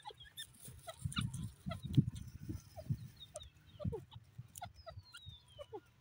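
Grey francolin giving short, soft clucking call notes, many quick falling chirps scattered through the clip, over dull low thuds, the loudest about two seconds in.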